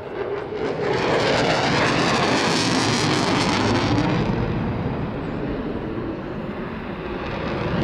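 RAF Eurofighter Typhoon's twin Eurojet EJ200 turbofans in afterburner (reheat): loud jet noise that builds about half a second in as the fighter passes close, with a swirling, phasing hiss in the upper range. After about four seconds the hiss dulls as the jet pulls away, then the noise swells again near the end.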